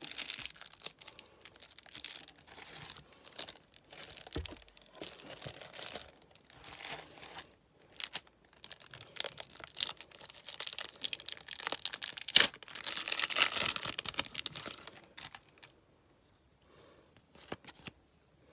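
Plastic and foil wrapping of Match Attax trading card packs being torn open and crinkled by hand, in irregular rustles. A sharp snap about twelve seconds in is followed by a couple of seconds of louder crinkling. After that only a few faint rustles remain.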